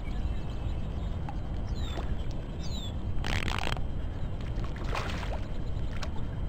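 Water splashing as a northern pike swirls and thrashes at the surface, with two brief splashes about three and five seconds in, over a steady low rumble.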